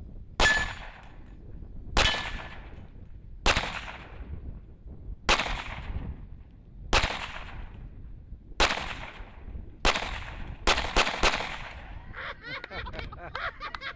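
Precision rifles firing on a long-range course: about ten sharp shots, each trailing off in an echo. The first seven come roughly every second and a half, then three follow in quick succession.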